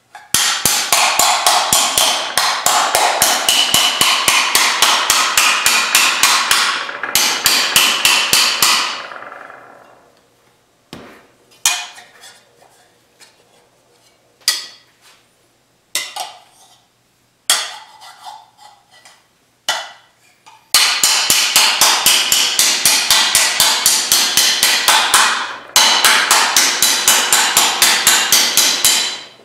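Steel hammer beating a 16-gauge cold-rolled steel fender blank over a sandbag to rough in its shape: long runs of quick, ringing metallic blows, about four a second, with a stretch of only a few scattered single blows in the middle.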